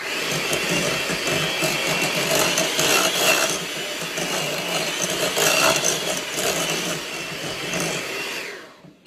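Electric mixer running, its beaters whirring through a thick cream cheese, butter and powdered sugar mixture in a bowl. It switches on suddenly at the start and winds down near the end.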